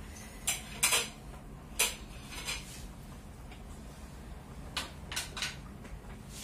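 Chopsticks clinking against a porcelain rice bowl while eating: a few sharp clinks in the first two seconds, then three more in quick succession about five seconds in.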